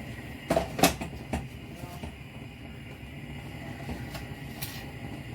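Kitchen utensils and containers knocking and clinking a few times in the first second and a half, over a steady low hum.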